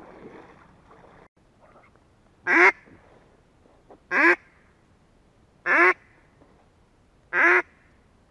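Four loud single duck quacks, evenly spaced about a second and a half apart, each short with a falling, nasal tone.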